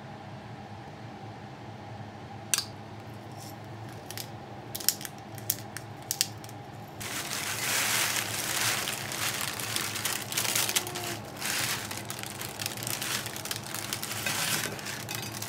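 A spoon clicks against a ceramic bowl a few times while mash is scooped into it. From about seven seconds in, a paper bag crinkles and rustles as roasted potato wedges tumble out of it onto a plate.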